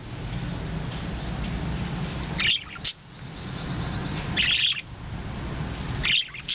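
Parakeets chirping in three short bursts about two seconds apart, over a steady low hum.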